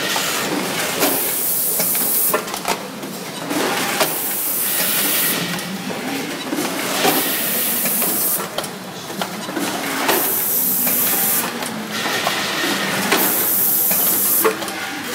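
Candy cup filling and labelling line running: a steady mechanical clatter from the conveyor and machines, with loud hissing bursts every few seconds and scattered clicks.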